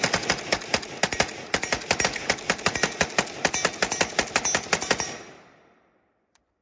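AKM rifle in 7.62×39 mm, semi-automatic, fired in a fast string of about five or six shots a second for about five seconds. The firing stops and the echo dies away over the next second.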